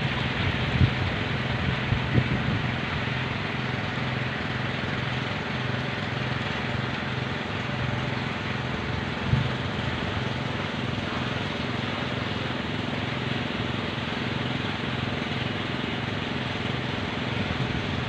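Kolecer, wooden propellers on tall bamboo poles, spinning in strong wind and giving a steady, evenly pulsing hum over a constant rush of wind.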